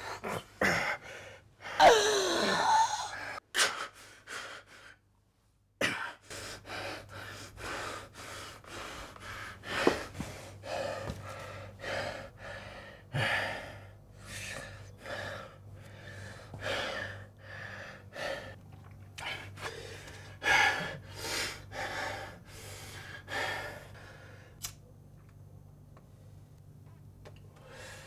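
A person breathing hard in short, sharp gasps, roughly one a second, with a louder voiced gasp that falls in pitch about two seconds in. The breathing breaks off briefly around five seconds in, then goes on.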